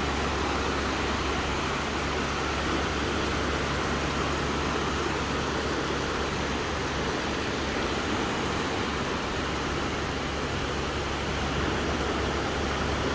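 Steady wash of gentle sea waves on a beach, with wind rumbling on the microphone.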